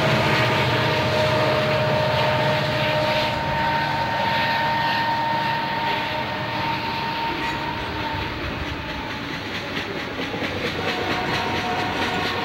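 CP Rail freight train passing close at speed. The diesel locomotives run by in the first few seconds, then the freight cars roll past with wheels clicking over the rail joints and a steady whine.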